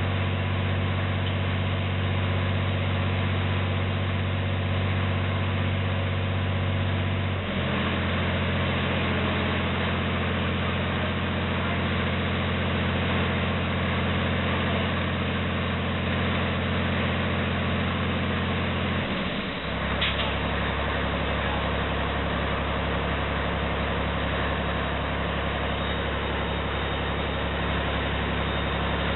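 Heavy diesel engine of the rail cleanup equipment running steadily, changing speed twice: about seven seconds in and again about twenty seconds in, with a brief click at the second change.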